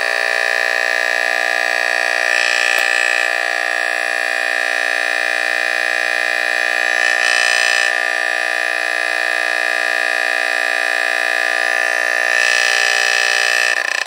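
Vintage Emhart Kwikset 357 photoelectric smoke detector sounding its alarm under test: its Faraday mechanical vibratory horn gives one loud, steady, buzzy blare, set off with the side test lever. It keeps going for the whole stretch and cuts off abruptly at the end.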